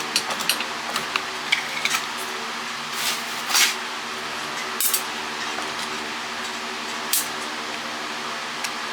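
Clicks and knocks of small plastic and metal cordless-phone parts being handled during dismantling, mostly in the first two seconds, then a few brief scrapes, over a steady low hum.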